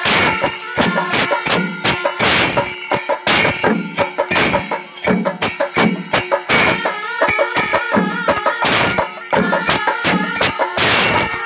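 Kerala temple ensemble: brass kombu horns blowing wavering calls over fast, dense percussion with jingling, clashing hand cymbals and drums.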